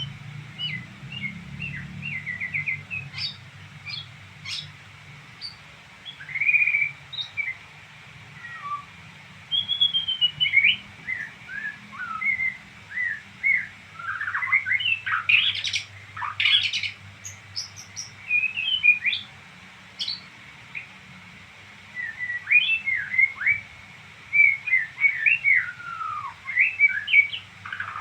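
A songbird twittering: runs of rapid, high chirps and quick up-and-down whistled notes with short pauses between phrases. A faint steady low hum sits underneath.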